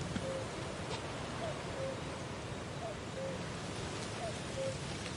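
An animal call repeating evenly about every one and a half seconds over a steady hiss of outdoor ambience. Each call is a short falling note followed by a slightly lower held note.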